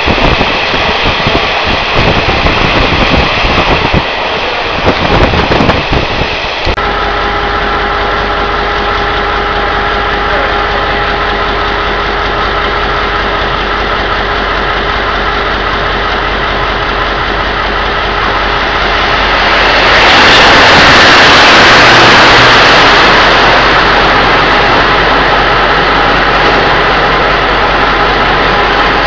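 Running noise and wind from a moving passenger train, then, after a cut, a steady engine hum with held tones as a diesel-electric locomotive-hauled train draws into a station. The hum swells loud about two-thirds of the way through as the locomotive passes close, and the rumble of the carriages rolling by follows.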